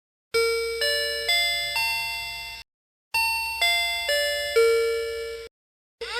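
Electronic four-tone chime from a Yong Yang fire alarm broadcast panel: four notes step upward, then after a short pause the same four notes step back down, each note fading as the next strikes. This is the attention chime that precedes the fire evacuation announcement. A rising siren sweep starts just at the end.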